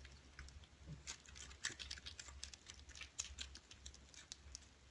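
Kittens eating from dishes: faint, irregular small clicks and smacks of chewing, several a second.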